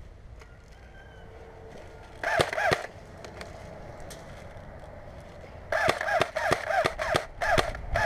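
Airsoft rifle firing: two shots about two seconds in, then a string of about seven single shots roughly a third of a second apart from about six seconds on.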